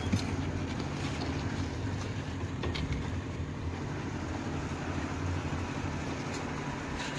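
Engine of a concrete-mixing and hoisting machine running steadily, a low even drone, with a faint knock or two from the work on the slab.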